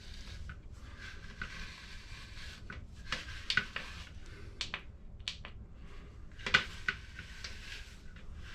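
Bristles of a heated beard straightening brush drawn through a beard, giving several short crackling, brushing strokes over a faint steady hiss.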